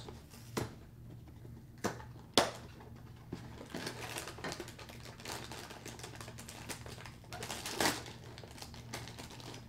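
A small cardboard cereal box is torn open: a few sharp snaps of the cardboard in the first couple of seconds. Then a longer run of crinkling and crackling as its plastic inner bag is pulled apart, with a louder tear near the end.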